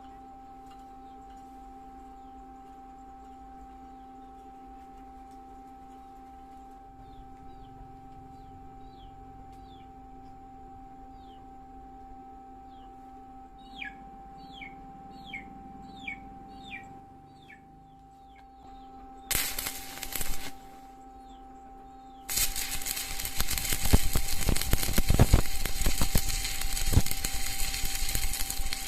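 Small birds chirping over a steady background hum. Then an electric welding arc is struck briefly about two-thirds through, and after a short pause it crackles loudly and continuously through the last several seconds as the weld is run.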